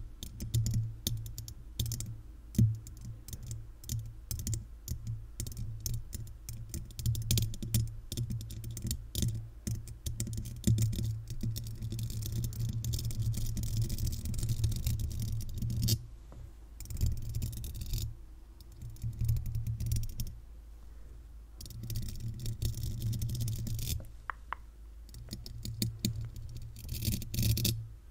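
Paper-clip fake nails tapping and scratching directly on a condenser microphone's metal mesh grille: rapid, clicky taps and scratches with low thumps from the mic body. The taps thin out into short lulls a few times in the second half.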